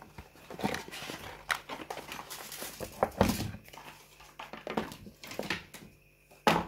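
Cardboard and paper phone packaging being handled: the paper insert slid out of the box and accessories lifted from the tray, with rustling, scraping and taps, and a sharp knock near the end.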